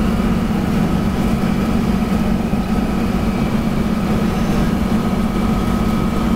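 Steady engine and road drone inside the cabin of a Toyota Land Cruiser 60 Series driving at highway speed, with a thin steady whine above it.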